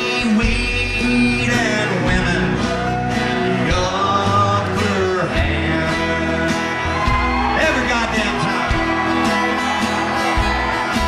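Live country song: a man sings with acoustic guitar and upright bass backing.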